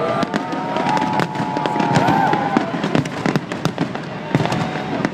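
Fireworks display: an irregular string of sharp bangs and crackles over a steady crowd hubbub, with long sliding whistling tones in the first half.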